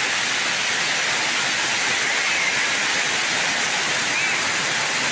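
Heavy tropical downpour: a steady, even hiss of hard rain falling on a muddy, puddled yard.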